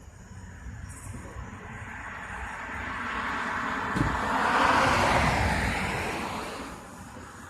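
A vehicle passing by: a rushing noise that swells to a peak about five seconds in, then fades away, with a sharp click about four seconds in.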